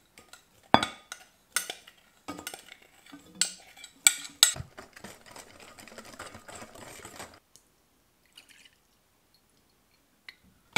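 A wire whisk and glass bowls clinking sharply several times, then about three seconds of steady whisking of muffin batter in a glass mixing bowl, stopping a little past halfway.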